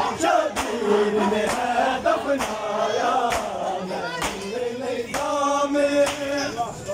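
Men's voices chanting a noha, a Shia lament, in unison. Sharp slaps of hands on bare chests (matam) keep time, about one a second.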